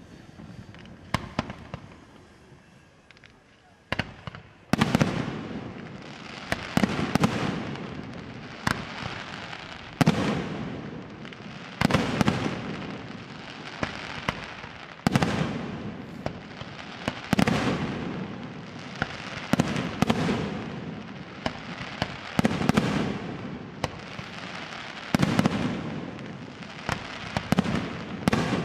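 Aerial firework shells bursting in steady succession, a loud bang every second or two, each followed by a long rumbling echo. A few sharp cracks come first in a quieter stretch before the barrage starts about five seconds in.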